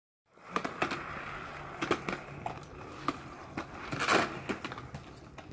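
Hard plastic caster wheels of a child's ride-on toy rolling and rattling over a concrete driveway, with scattered clicks and knocks as it turns.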